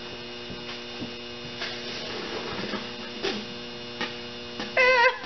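Steady electrical mains hum with a few faint knocks. Near the end comes a brief wordless vocal sound with a wavering pitch.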